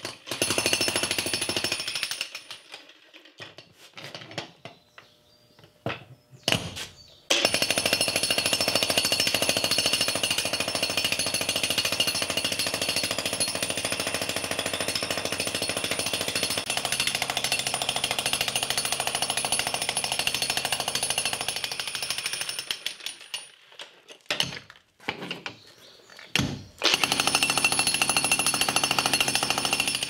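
Corded electric jackhammer breaking up an old concrete floor slab in runs of steady rapid hammering. It stops about a second in, gives a few short bursts, then hammers for about fifteen seconds. It pauses again with a few short bursts, then starts up once more near the end.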